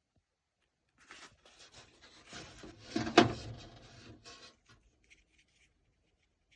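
Handling noises: rubbing and rustling starting about a second in, with one sharp knock a little past the middle, dying away near the end.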